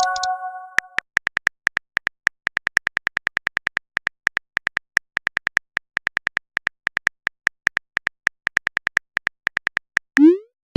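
Texting-app sound effects: a short multi-note chime at the start, then a long run of rapid, irregular high-pitched ticks of simulated keyboard typing. A quick rising swoosh near the end sounds like a message being sent.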